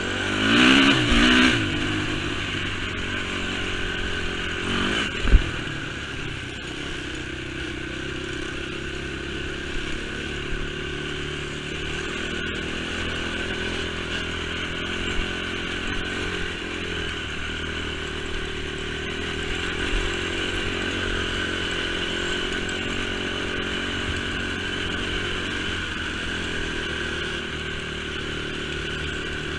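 A Honda TRX450 sport quad's single-cylinder engine running under way, revved up and back down about a second in, with one sharp knock about five seconds in, then running steadily.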